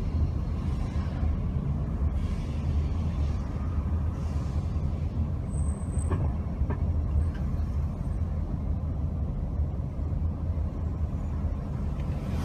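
Steady low rumble of a car driving along a city street: engine and tyre noise.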